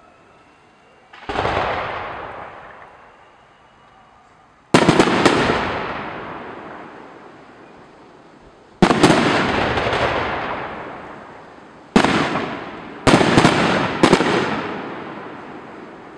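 Aerial firework shells bursting: a duller bang about a second in, then sharp bangs in clusters about 5, 9, 12 and 13 to 14 seconds in, each trailing off in a long echo.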